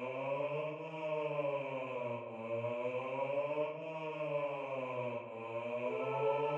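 Low bass voices humming a sustained 'mmm' drone, softly, with a slow rise and fall in tone. A higher soprano line joins on 'ah' near the end.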